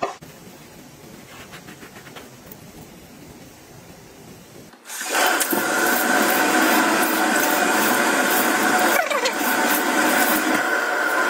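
Kitchen faucet turned on about five seconds in: a stream of tap water runs steadily onto a sponge held in the palm and splashes into the sink below.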